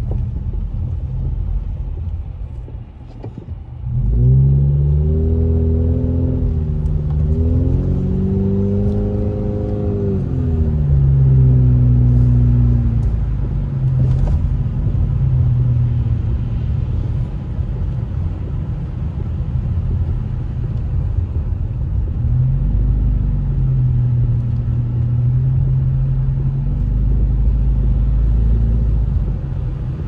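Car engine and road rumble heard from inside the cabin. The engine sound dips about three seconds in, then climbs in pitch as the car accelerates away, settles into a steady hum, and climbs again briefly past the twenty-second mark.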